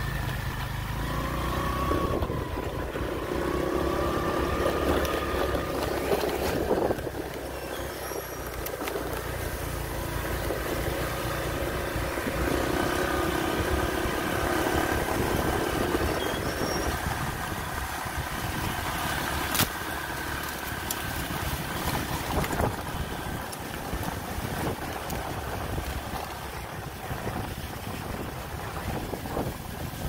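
Motorbike engine running while riding along a dirt road, its pitch shifting up and down several times with speed, over a steady low rumble.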